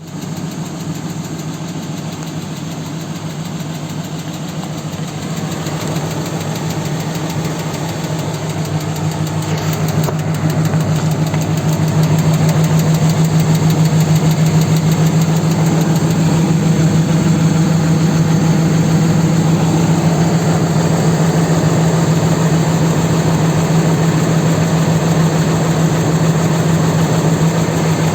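A 4.7-litre engine idling with a rapid, even knock. It grows louder over the first dozen seconds, then holds steady.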